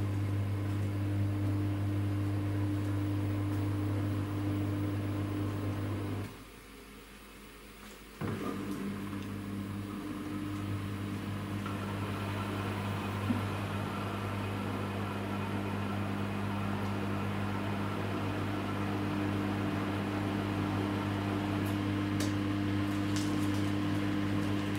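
Samsung WW10N645RBW front-loading washing machine spinning: a steady hum from its digital inverter motor and drum, with no shaking or knocking now that its feet are levelled. About six seconds in, the sound drops much quieter for about two seconds, then resumes as before.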